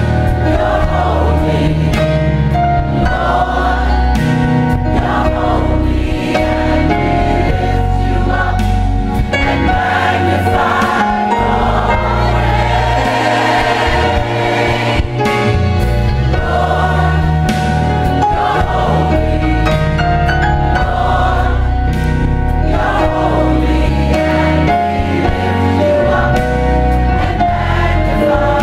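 Church gospel choir singing in harmony, accompanied by keyboard, with a low bass line and a steady beat.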